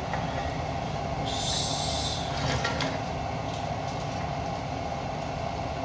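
A steady low whirring drone in the kitchen, with a short hiss about a second and a half in. A few light clicks follow as a wooden spoon knocks against a plate and a steel pot while fried fish pieces are pushed into the pot.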